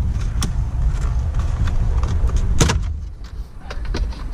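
Scattered clicks and knocks of plastic dashboard trim being handled and worked loose, with one loud click about two and a half seconds in, over a steady low rumble.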